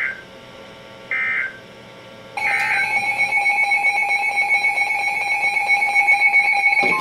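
Emergency Alert System data bursts: three short warbling chirps about a second apart, the end-of-message code that closes a weather alert. The third chirp runs straight into a steady two-pitch electronic alert tone, with a fast flutter in its level, that holds for about four and a half seconds.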